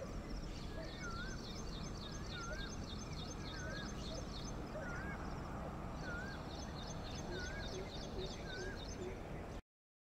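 Birds calling outdoors: a wavy whistled call repeats about once a second over a high, fast chattering, with a steady low background noise. The sound cuts off suddenly near the end.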